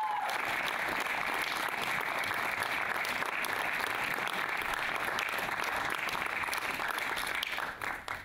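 Audience applauding steadily, thinning to scattered claps near the end.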